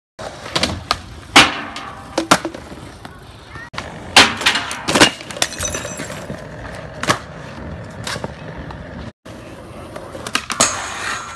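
Skateboard wheels rolling on concrete, broken by a series of sharp wooden clacks from the board popping and landing, at irregular intervals.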